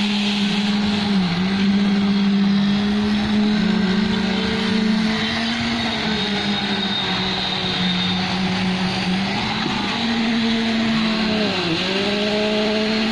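Concrete pump truck's diesel engine running at high revs, its pitch sagging briefly under load about a second in and again near the end.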